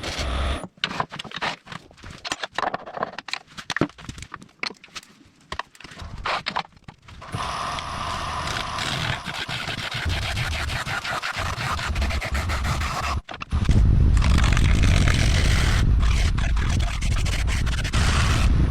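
Turning tool scraping and cutting wood spinning on a lathe. It comes first in short, broken strokes, then as a continuous cut from about seven seconds in. From about thirteen seconds in it is louder, with a heavy low rumble under it.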